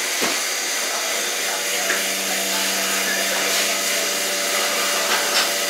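Vacuum forming machine running with a steady rushing noise as a plastic sheet is formed into helmet peaks; a low steady hum comes in about two seconds in.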